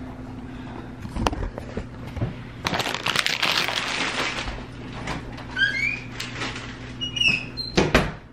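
Household handling noises: a few knocks and clunks, a burst of rustling about three seconds in, a few short high squeaks, and a louder knock near the end.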